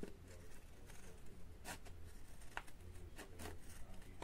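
Scissors cutting across a strip of scrapbooking paper: a few faint, irregularly spaced snips.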